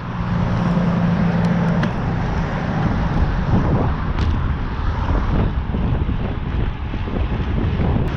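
Strong wind buffeting the microphone of a camera carried on a moving bicycle, a steady fluttering rumble, with a faint hum in the first couple of seconds.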